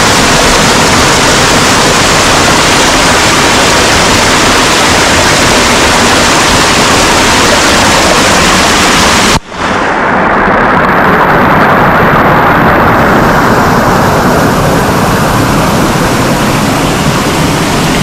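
Rushing water of a fast-flowing stream close to the microphone: a loud, steady rush. It breaks off briefly about nine seconds in and resumes with less hiss.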